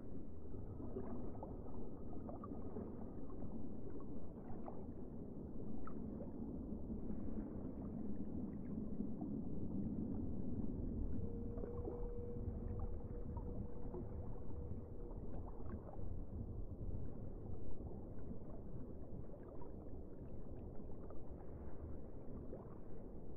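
Muffled underwater sound of shallow water heard through a submerged camera: a steady low rumble of moving water with scattered faint clicks. A faint steady tone runs for a few seconds around the middle.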